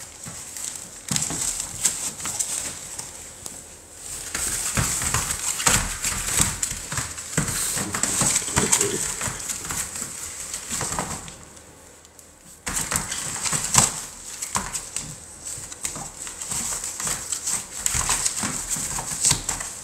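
American Bully puppies moving about in a plastic kiddie pool bedded with wood shavings: their claws scratch and click on the plastic while the shavings rustle, in irregular spells with a quieter pause about eleven seconds in.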